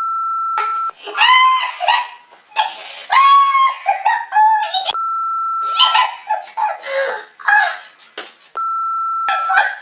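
High-pitched yelps and laughter, cut three times by a steady one-second censor bleep: at the start, about five seconds in, and near the end.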